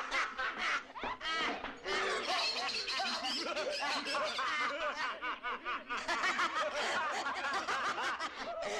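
Several voices laughing maniacally together, a dense chorus of quick, overlapping 'ha-ha-ha' cackles.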